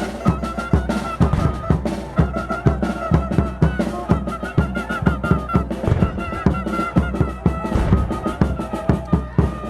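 Chirimía band playing an instrumental passage: a high melody line over a fast, steady beat of bass drum and snare.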